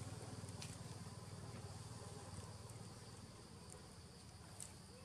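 Faint steady insect chorus, with a low rumble that fades away and a few small clicks.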